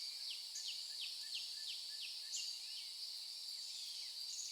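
Faint nature ambience of crickets chirring steadily, with a bird calling in a run of short falling chirps, a few a second, that thins out after about three seconds.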